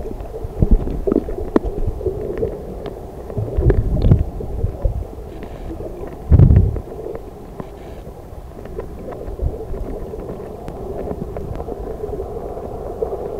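Muffled underwater water noise: a steady low rumble with scattered clicks and knocks, and a heavy thump about six seconds in.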